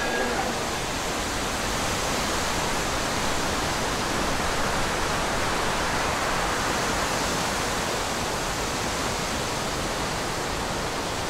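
Steady wind noise: an even, unbroken rushing hiss.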